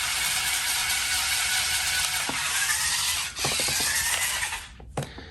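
MAKINO 4WD RC stunt car's two electric drive motors and gearboxes whirring steadily as the car drives itself in demo mode. The whirr cuts out about a second before the end and is followed by a click or two.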